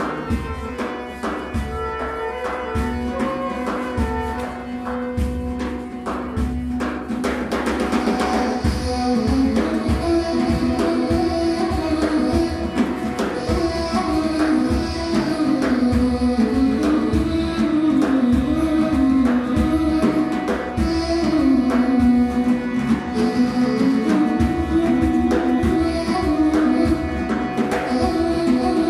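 Live Egyptian zar music: drums beat a steady rhythm under a wavering melody line. A held drone note runs through the first seven seconds or so, and a crash comes about seven seconds in.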